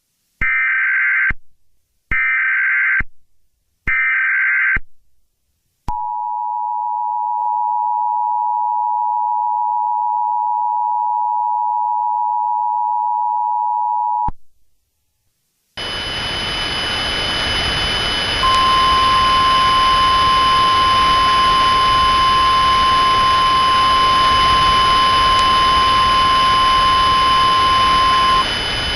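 Emergency Alert System tones. Three short warbling data bursts of the SAME header come first, then the two-tone attention signal holds for about eight seconds. After a short gap a loud hiss of static starts, with a steady NOAA Weather Radio warning alarm tone held over it for about ten seconds.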